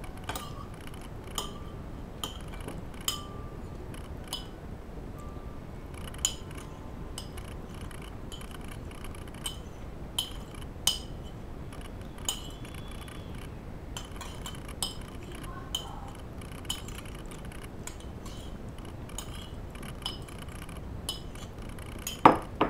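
Metal spoon clinking and scraping against a ceramic plate while eating, in scattered short clinks that ring briefly. A louder clatter near the end as the spoon is put down on the plate.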